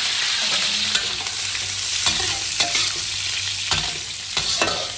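Sliced cured pork sizzling in hot oil in a wok as it is stir-fried. A metal spatula scrapes and knocks against the wok about once a second.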